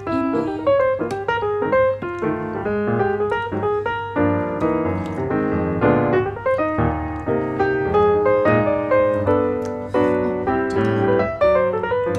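Background piano music: a quick, continuous run of notes.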